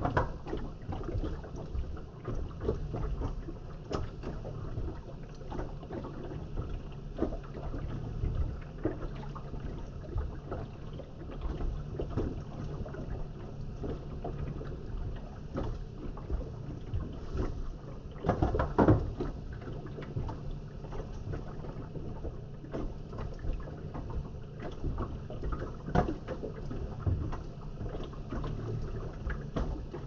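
Toy washing machine running a wash: a small motor turning the drum under a steady low hum, with water sloshing and irregular knocks and clatters as the wet laundry tumbles. A louder clatter comes about two-thirds of the way through.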